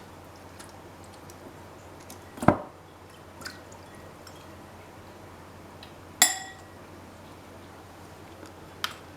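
A few scattered knocks and clinks of kitchenware while halved yabbies are rinsed and cleaned, with fainter ticks in between. The two loudest come about two and a half and six seconds in, and the second rings briefly like glass or metal.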